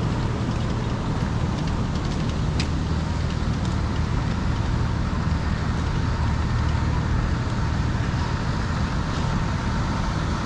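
Steady rumble of road traffic, with a few faint ticks over it.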